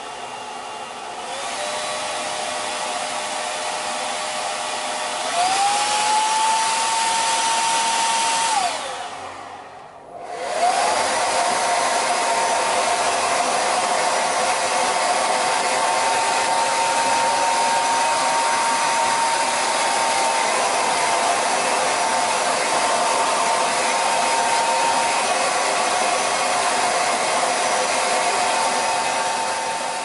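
Unix UN-A3056 Super D+ hair dryer blowing, a rush of air with a motor whine, starting on the low setting with its nozzle removed. It steps up in speed about a second in and again around five seconds in, winds down and stops about nine seconds in, then starts again a second later and runs steadily at high speed.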